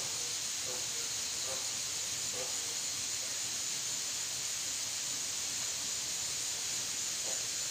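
Steady high-pitched drone of an insect chorus, unchanging throughout.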